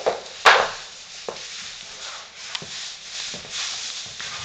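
A sharp knock about half a second in, then soft scuffs and light taps of sneaker footsteps on a wooden plank floor.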